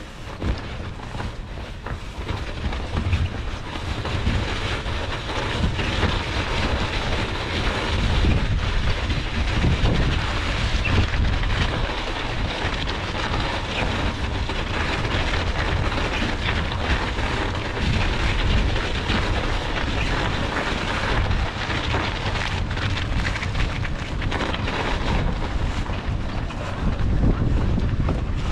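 Gusting wind buffeting a bike-mounted GoPro's microphone while riding through a snowstorm: a steady rush with a deep rumble underneath, a little louder after the first few seconds.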